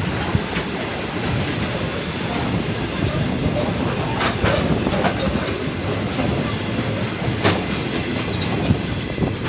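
A train passing: a steady rumble of wheels on rail, with occasional clicks as the wheels cross rail joints.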